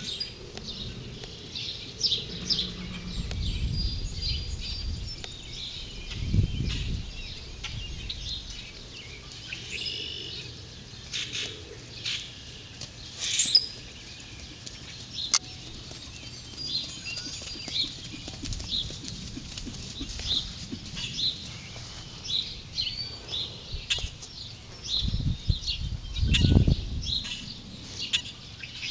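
Songbirds chirping on and off throughout, with a few low rumbles: about three seconds in, about six seconds in, and the loudest one near the end.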